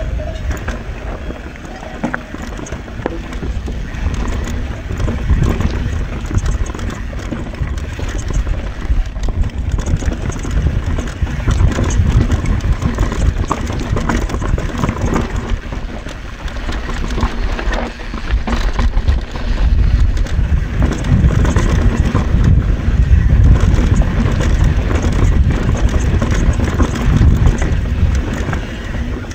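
Full-suspension mountain bike, a YT Tues, descending a rough enduro trail at speed, with steady wind rush on the camera microphone and tyre roar over dirt and rock. Frequent knocks and rattles come as the bike hits bumps. It grows louder in the second half as the pace picks up.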